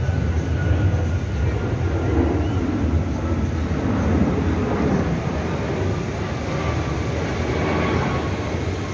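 Airplane passing overhead: a steady loud rumble with a faint engine whine that falls slowly in pitch.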